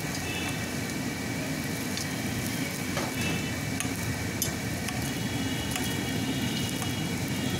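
A paratha frying in oil on a large flat griddle: a steady sizzle, with a few sharp clinks of a metal ladle and skewer against the griddle, over a low rumble of street traffic.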